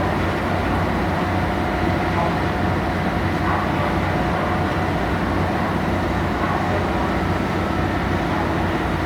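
Car ferry under way: a steady low rumble of its diesel engines with a rushing noise over it, unchanging throughout.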